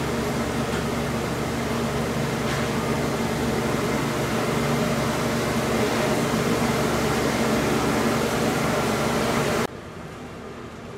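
Steady mechanical hum and rush of a fan-driven fruit-drying room, with a few constant tones in it. It stops abruptly near the end, giving way to much quieter open-air background.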